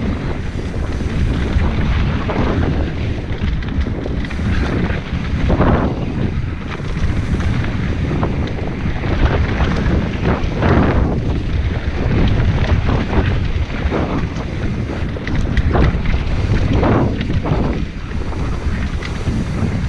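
Wind buffeting the microphone of a mountain bike ridden fast down a dry dirt trail, over a steady rumble of tyres, with frequent knocks and rattles as the bike hits bumps.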